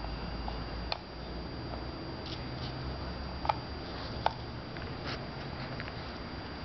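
Cockapoo puppy chewing a rubber toy: a few sharp clicks of teeth on the toy, the two loudest about halfway through, over a steady low rumble.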